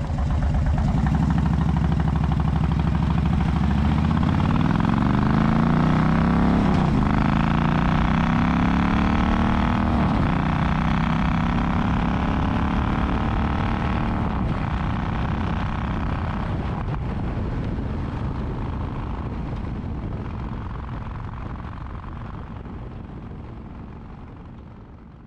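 Motorcycle engine accelerating, its pitch climbing with a few brief breaks like gear changes, then running steadily before fading away near the end.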